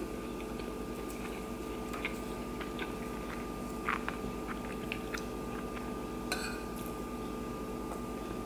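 Close-miked eating sounds: chewing, with scattered light clicks and scrapes of a metal spoon against a ceramic plate as corned beef hash is scooped up, a couple of sharper clinks among them. A steady low hum runs underneath.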